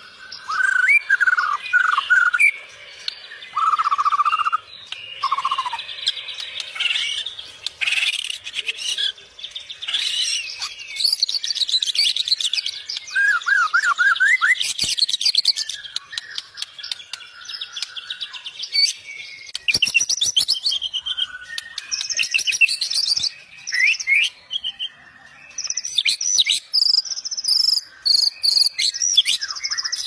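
White-rumped shama (murai batu) singing a long, varied song: loud whistled phrases, fast trills and quick note runs, one after another with only brief pauses.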